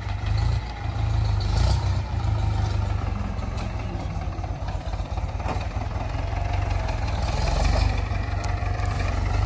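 Ford farm tractor's diesel engine running steadily under load as it pulls a seven-disc plough through hard ground.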